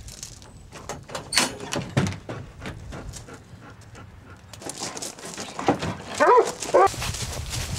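Police dog, a black German shepherd, giving three short whining cries about six seconds in as it comes out of its crate in the truck bed. A couple of sharp knocks come before that, about a second and a half in.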